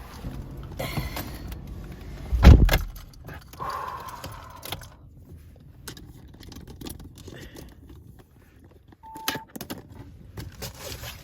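Clinking, rattling and knocking of small objects being handled, with one heavy thump about two and a half seconds in and a short single-pitched beep about nine seconds in.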